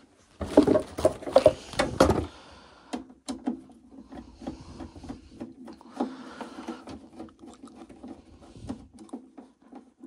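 Plastic boiler condensate sump cover being handled and pushed into place: a loud spell of rubbing and clattering starting about half a second in and lasting under two seconds, then scattered clicks and knocks over a faint steady hum.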